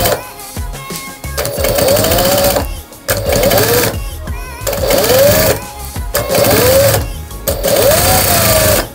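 Industrial sewing machine stitching two layers of fabric together, running in several short runs with brief stops between them.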